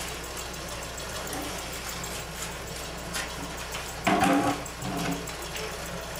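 Steady hiss with a constant low hum from old home-camcorder audio, with a few faint rustles, and a short voice sound about four seconds in.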